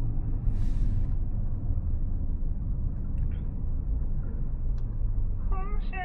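Steady low road and tyre rumble inside the cabin of a moving Xiaomi SU7 electric car, with a short hiss about half a second in. Music with singing comes in near the end.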